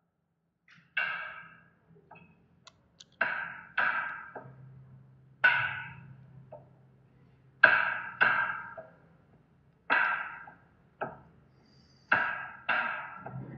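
Instrumental background music: sparse, sharply struck notes that ring and fade quickly, often in pairs, over a faint low sustained tone.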